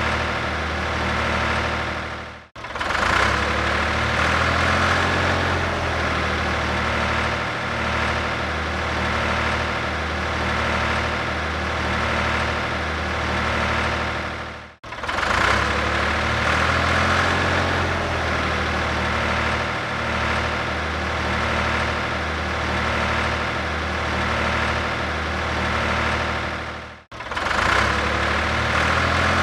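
Tractor engine running steadily at idle. The recording drops out briefly and starts over twice, about every twelve seconds.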